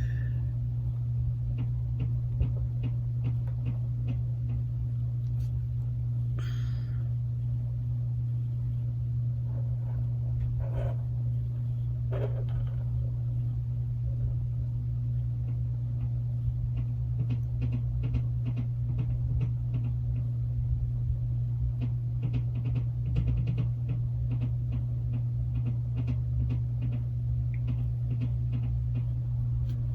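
A steady low hum with many light clicks and taps of small parts being handled; the taps come thickest in the second half.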